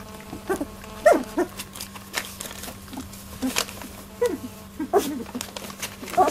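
18-day-old Labradoodle puppies squeaking and grunting in short calls, several sliding down in pitch, among scattered clicks and scuffles as they jostle at a metal bowl of milk on newspaper.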